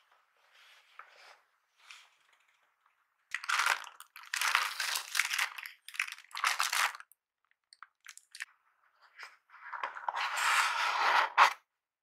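Tissue paper wrapping crinkling and rustling in several bursts as it is handled, then a longer stretch of paper and cardboard packaging rustling near the end.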